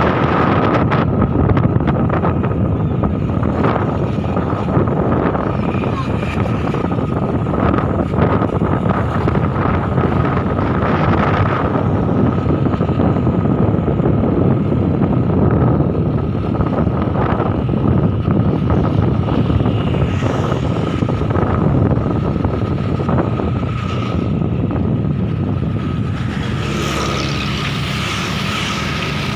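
Ride-along sound from a motorcycle: wind rushing over the microphone mixed with the small motorcycle engine running steadily at road speed, with a thin steady whine running through it.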